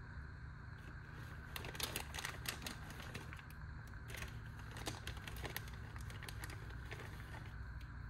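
Clear plastic bag crinkling and crackling as it is handled, a run of sharp little crackles and clicks from about a second and a half in until near the end, over a steady low hum.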